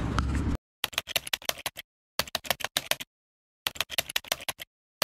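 Street traffic noise cuts off abruptly just after the start. It gives way to a typing sound effect: rapid keyboard clicks in four runs of about a second each, separated by dead silence, accompanying on-screen text typing out.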